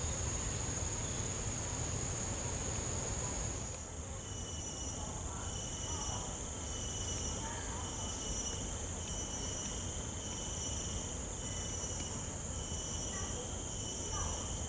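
Insects calling in a steady, high-pitched chorus; about four seconds in the sound changes abruptly to several high tones that pulse at a slow, even rate.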